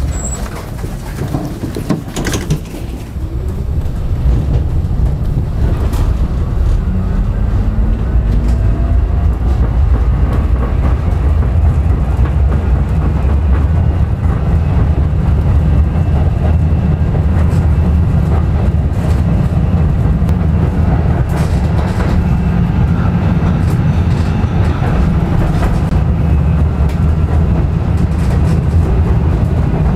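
Interurban tram running on worn, poorly kept track, heard from on board: a steady low rumble of wheels on rail with scattered knocks at joints, growing louder a few seconds in as it gathers speed, with a faint rising whine from the motors.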